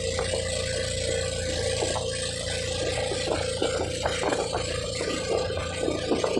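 Motorized outrigger boat running steadily under way, its engine giving a steady drone, with wind buffeting the microphone and water rushing past the hull.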